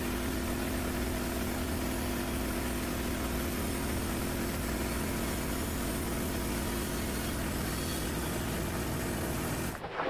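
An engine idling steadily with an even hum, cut off suddenly near the end.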